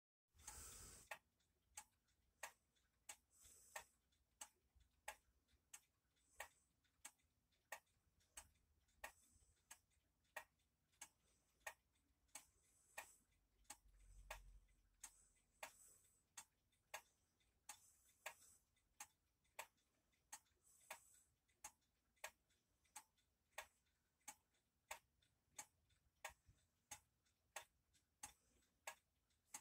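Old pendulum wall clock ticking faintly and steadily, about three ticks every two seconds, its spring still wound and running.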